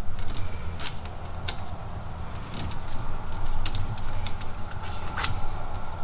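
Irregular light metallic clicks and clinks as a new CV axle is twisted and worked into its splines by hand, the loudest click a little after five seconds in.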